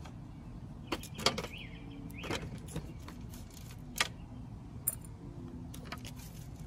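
Potting soil mixed with small stones being dropped into a small glass jar: scattered gritty clicks and taps against the glass, the sharpest about a second in and again about four seconds in.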